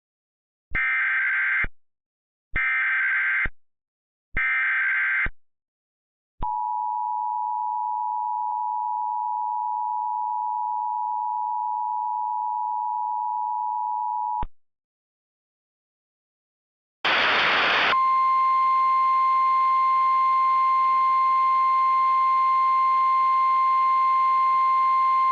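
Emergency Alert System test: three short screeching bursts of SAME header data, then the two-tone attention signal held steady for about eight seconds. After a short pause comes a brief burst of static, then the steady single-tone NOAA Weather Radio warning alarm over a hiss.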